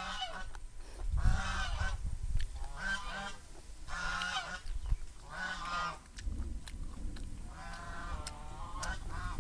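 Geese calling nearby: a string of short honking calls, each about half a second long, coming roughly once a second.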